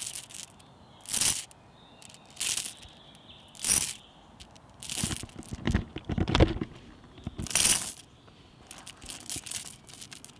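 Steel link chain clinking and jingling as it is let down into a cupped hand, again and again, about every second and a quarter, with a duller, lower handling sound about six seconds in and a run of smaller clinks near the end.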